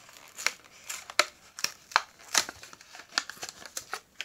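Plastic blister of a Hot Wheels die-cast toy card being pried and peeled off its cardboard backing by hand: irregular crackles and sharp clicks of bending, tearing plastic and card.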